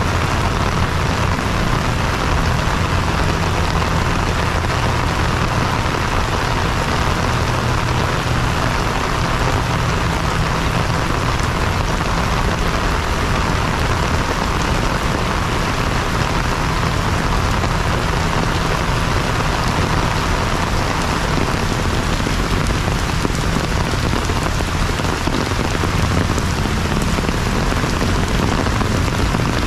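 Heavy rain falling steadily on paved ground, an even, unbroken hiss.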